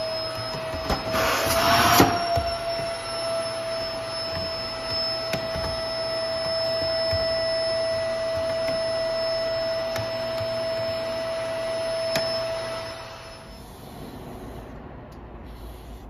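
Cordless stick vacuum cleaner running with a steady whine while it sucks dust from an exhaust fan's housing. There is a brief louder rush of air about a second in, and the motor stops shortly before the end.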